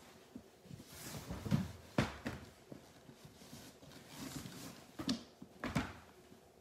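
Cotton dust bag rustling as it is pulled off a canvas-and-leather dog carrier, with a few sharp knocks from the carrier being handled and set down, about two seconds in and again near the end.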